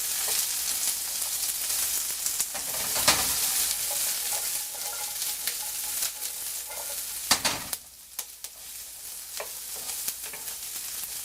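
Sliced bell peppers and onions sizzling in hot oil in a frying pan on medium-high heat while being stirred with a cooking paddle, with a couple of sharp knocks of the paddle against the pan. The sizzle drops noticeably quieter about eight seconds in.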